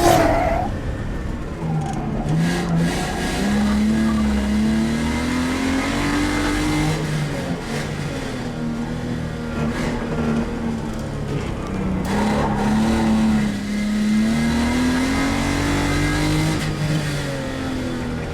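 Chrysler Sunbeam's engine under acceleration, its note climbing steadily and then dropping back, twice.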